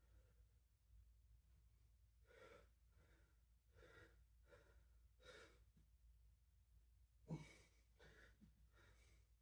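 A person breathing hard after exercise, a string of quick, faint breaths, with one sharper, louder breath or thud about seven seconds in.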